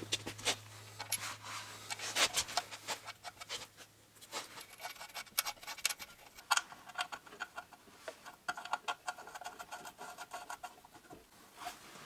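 Irregular clicks, taps and light scraping of hands and tools working on metal parts. A low hum fades out over the first few seconds.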